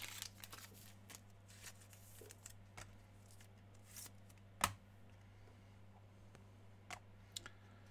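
Faint rustling and light clicks of trading cards being handled and slid about, with a sharper click about four and a half seconds in, over a low steady hum.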